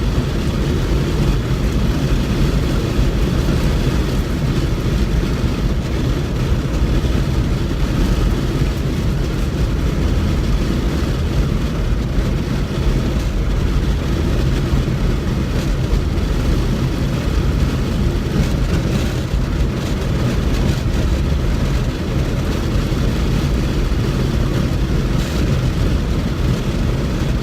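Steady low rumble of a moving vehicle, like road and engine noise inside a car.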